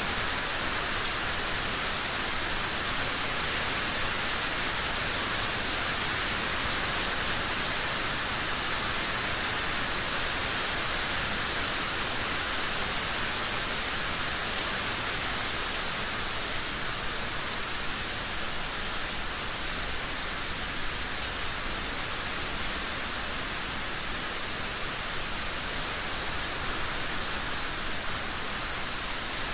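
Steady rain falling, an even, unbroken hiss of rainfall that neither builds nor eases.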